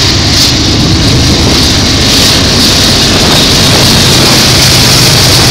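Norfolk Southern diesel freight locomotives passing close by, their engines running loud and steady with a low drone.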